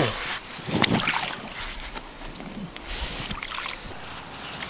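Water sloshing and splashing as a heavy, water-filled carp retention sling holding a large carp is lifted out of the lake onto a floating unhooking mat. The loudest splash comes at the start and another about a second in, then softer splashing and rustling as the wet sling is opened.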